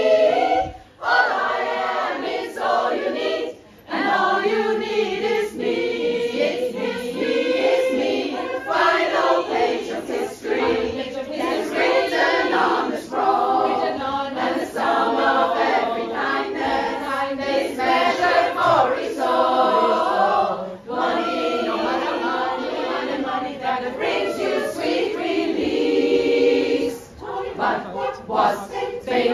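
Women's choir singing in harmony, held chords with short breaks between phrases.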